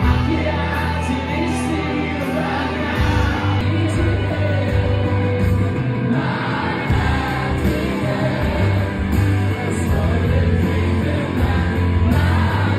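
Loud music with singing over a strong bass line.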